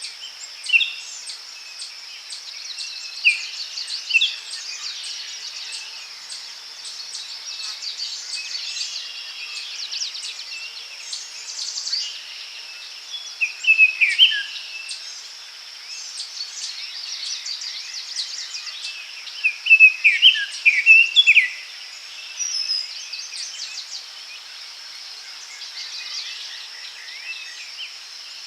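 Forest ambience: several birds chirping and singing over a steady, high-pitched insect drone. The birdsong comes in louder flurries about halfway through and again about two-thirds of the way through.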